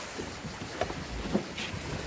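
Sea water lapping and splashing, with a few small irregular slaps, and wind buffeting the microphone.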